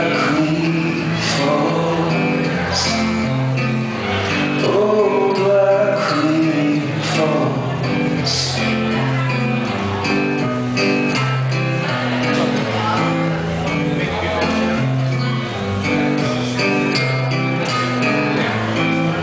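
Live acoustic guitar strummed in a steady chord pattern. A male voice sings over it for the first several seconds, then the guitar plays on alone.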